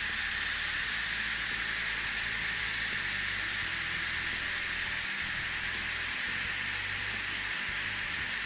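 Dyson Airwrap hair styler running steadily on its heat setting, a constant airy hiss of air blowing through the barrel while it heats a wrapped section of hair.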